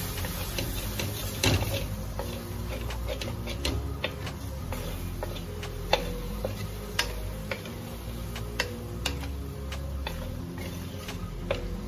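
Wooden spatula knocking and scraping against a stainless steel pan while stir-frying chicken and long beans, giving irregular sharp clicks about once or twice a second.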